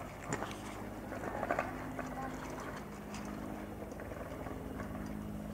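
Bell 412 helicopter running at a distance: a steady drone with a fast rotor beat underneath, and a couple of short clicks about a third of a second and a second and a half in.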